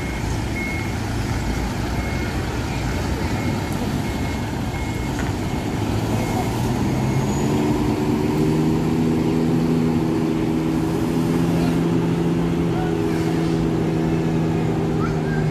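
Diesel engine of a large coach running as the bus manoeuvres, with a reversing beeper sounding repeatedly for about the first seven seconds. After the beeping stops, a steady engine hum comes up and holds as the coach pulls around.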